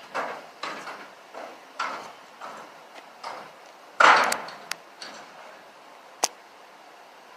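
Footsteps at a steady walking pace, about one and a half a second, then a louder thump about four seconds in and a single sharp click a couple of seconds later.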